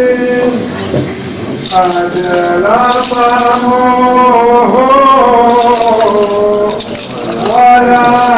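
Voices chanting a liturgical hymn in long held notes that step and slide between pitches. A metallic jingling is shaken in two stretches, from about two seconds in and again from about five and a half seconds.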